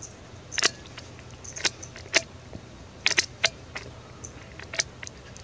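Prairie dog calling: about ten short, sharp, duck-like barks in an irregular series, a few of them in quick pairs.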